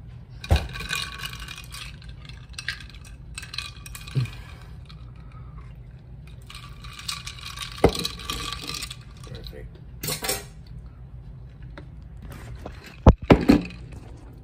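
Ice cubes rattling and clinking in a plastic cup of iced coffee as it is handled, with several sharp knocks; the loudest two come close together near the end.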